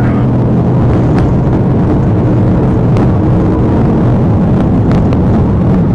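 Police patrol car at highway speed, heard from inside: a loud, steady drone of engine, tyres and wind, with a few faint clicks.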